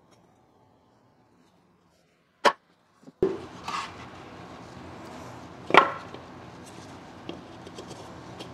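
Wooden cribbing blocks knocking as they are set in place by hand under a machine's foot: a sharp knock about two and a half seconds in, another near four seconds, and the loudest near six seconds, with light ticks between.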